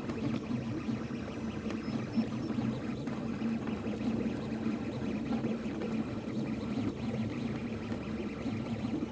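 Anet A8 3D printer running, a steady buzzing hum with a restless, churning texture from its motors.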